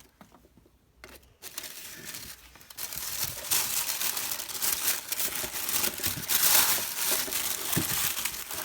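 Packaging being crinkled and rustled as an item is unwrapped. It is near silent for the first second or so, then the crinkling starts and grows louder from about three seconds in.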